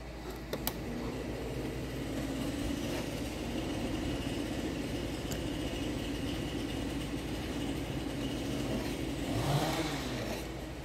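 A machine running steadily, with a brief swell in level about nine seconds in.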